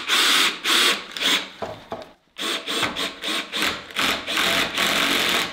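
Cordless drill driving screws into oak in short, repeated bursts of the trigger, with a brief stop about two seconds in. The screws are being run in partway and left loose, not yet fully tightened.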